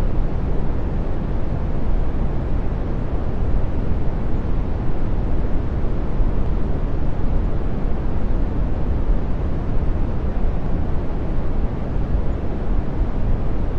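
Brown noise: a steady, deep, soft rush of random noise, strongest in the bass and thinning out toward the treble.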